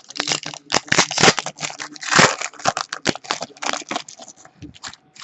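Crinkling and crackling of a trading-card pack wrapper being handled and torn open, in quick irregular rustles with a longer crinkle about two seconds in.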